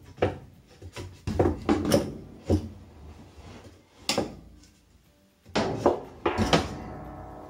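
Wooden board knocking and clattering against steel cable, vice grips and the washer as a homemade cable-twist puller is wound on a stuck wash plate. Near the end a cluster of hard metal hits leaves a ringing that slowly fades.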